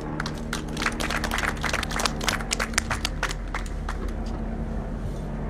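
Audience applauding, a run of claps that dies away a little over halfway through, over a steady low hum.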